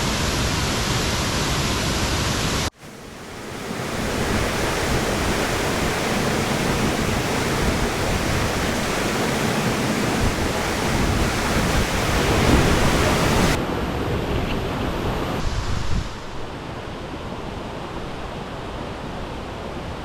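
Waterfall rushing: a steady, loud wash of falling water. It cuts out abruptly for a moment about three seconds in, then comes back. About sixteen seconds in it turns quieter and duller.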